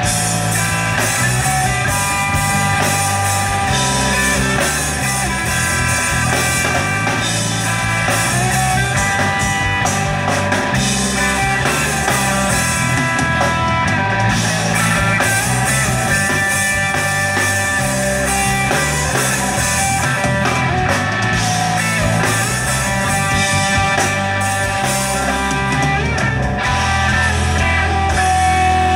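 Live rock band playing: electric guitars, electric bass and drum kit.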